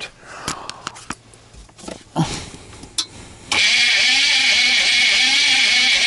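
A few clicks, then about three and a half seconds in the starter suddenly cranks the van's diesel V8, a steady whine with a slow regular pulse, and the engine does not catch.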